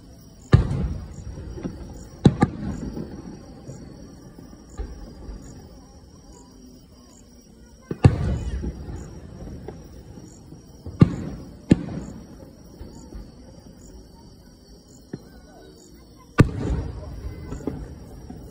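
Aerial firework shells bursting in the distance: about seven sharp booms, including a quick double near the start, each followed by a rolling rumble that dies away.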